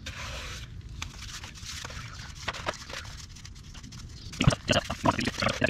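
Hands packing wet hydraulic cement into a crack in a concrete pool wall: soft scraping with scattered clicks, then a busy run of loud, sharp smacks starting about four seconds in.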